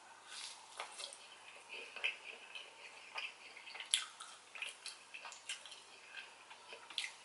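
Close-miked chewing of a chicken McNugget: soft wet mouth clicks and smacks, with two sharper clicks about four seconds in and near the end.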